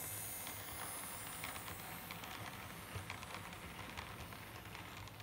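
Model railway side-tipper ballast wagons rolling past on the track, their wheels clicking irregularly over the rail joints, over a faint steady low hum.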